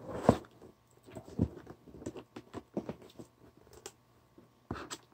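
Hands handling a white corrugated cardboard mailer box: scattered light knocks, taps and scratchy rustles on the cardboard, the loudest a thump about a third of a second in.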